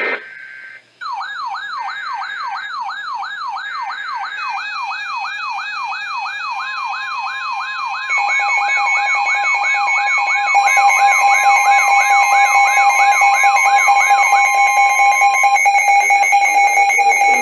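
Several weather alert radios sounding their alarms together. A siren-like tone sweeps about two and a half times a second, steady alert tones join in, and more high beeping tones stack on at about eight and ten seconds, each step louder.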